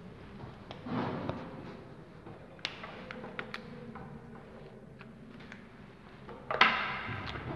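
Marker pen on a whiteboard: short taps and scratchy strokes as words are written, with a louder burst of sound near the end.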